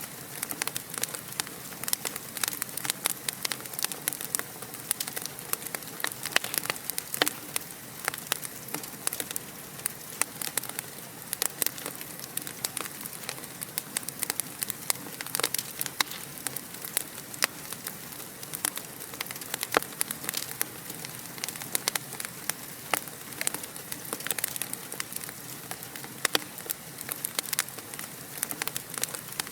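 Wood fire crackling steadily, with many irregular sharp pops and snaps over a soft hiss.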